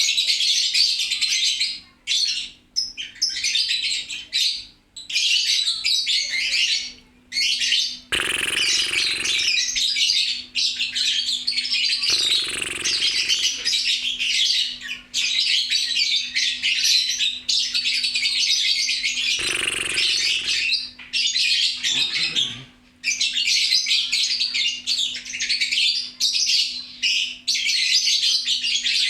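Lovebirds chattering shrilly and almost without a break, in long runs of fast trilling with short pauses between them. A few brief bursts of noise come about eight, twelve and twenty seconds in, over a faint steady low hum.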